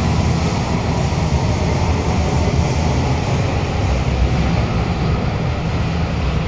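Steady low rumble and hiss of wheels on track, heard from inside a Kawasaki-CRRC Qingdao Sifang CT251 metro car running through a tunnel.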